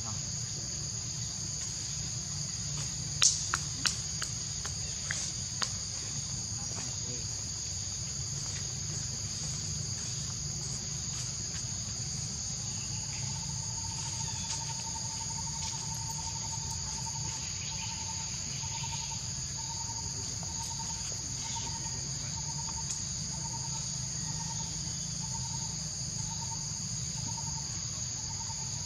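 Steady high-pitched insect chorus buzzing without a break over a low background rumble. A few sharp clicks come about three to six seconds in, and from about twelve seconds a lower pulsing call joins, repeating a little more than once a second.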